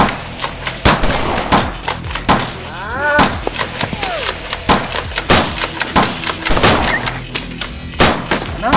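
Background action music with a steady low bass and a dense run of sharp percussive hits.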